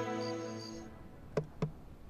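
Soft sustained background-music chords, with a high chirp pulsing about four times a second, fade out just under a second in. Then quiet room tone and two sharp taps of high-heeled footsteps on a hard floor.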